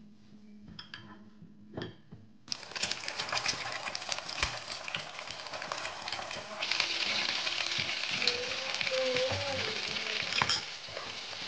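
Food dropped into hot oil in a pan about two and a half seconds in, then frying with a steady sizzle and crackle that grows louder a few seconds later. A few light clicks come before it.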